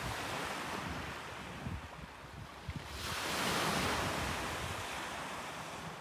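Sea waves washing onto the shore. One wave swells up about three seconds in and slowly drains away, with wind buffeting the microphone.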